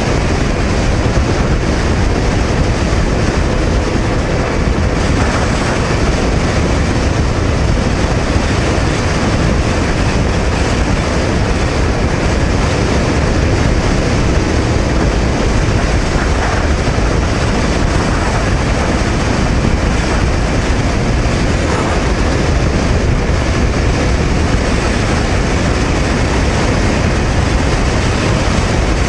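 Steady rush of wind and road noise from a Honda VTR250 motorcycle cruising at about 100 km/h on the expressway. The V-twin engine runs under the wind on the microphone, with no change in pitch.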